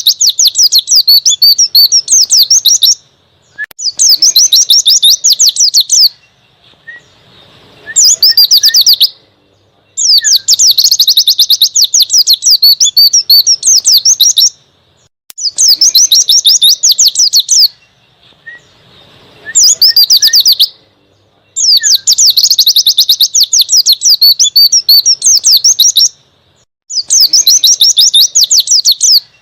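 White-eye (pleci) singing a fast, high twittering song in repeated phrases of about one to four seconds, with short pauses between them, about eight phrases in all. It is a wild-type ('ngalas') song used as tutor recording (masteran) to teach caged white-eyes.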